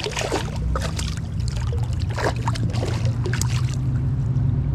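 A hand splashing in shallow creek water after a landed trout, several short splashes over the steady rush of the flowing creek.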